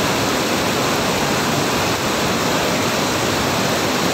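Fast floodwater rushing over a road in a steady, even roar of water.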